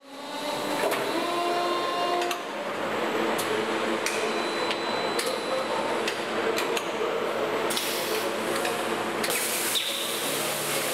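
Aluminium die-casting machine running: a steady mechanical din with clicks and knocks, and bursts of hiss about eight and nine seconds in as mist clouds the open die.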